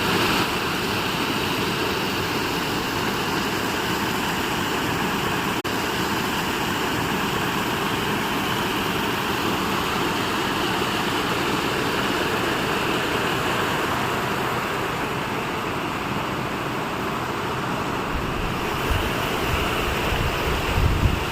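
Steady rushing water, an even unbroken roar. A few low rumbling bumps come near the end.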